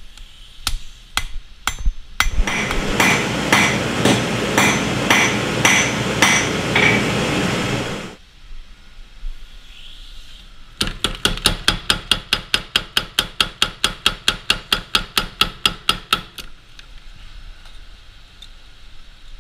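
Hammer blows on a red-hot steel knife blank: a few single strikes, then about two blows a second over a steady noise that stops suddenly. After a pause, a power hammer strikes the blade in a fast, even run of about five blows a second for about five seconds.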